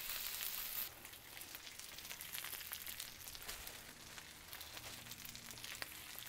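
Beef patties, onions and jalapeños sizzling on a flat-top griddle: a faint, steady frying hiss with fine crackles. It is louder for about the first second, while a metal spatula finishes stirring the onions.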